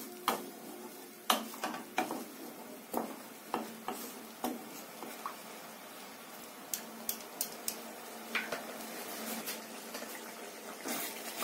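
A spatula stirring a watery masala gravy in a nonstick kadai, scraping and knocking against the pan in irregular clicks.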